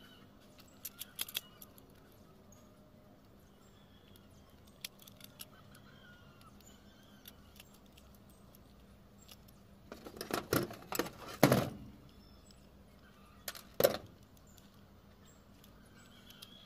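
Metal hand tools clinking and clattering against each other and the corrugated metal roof sheet: a few light clicks near the start, then a louder run of clatters about ten seconds in and one more sharp knock a couple of seconds later.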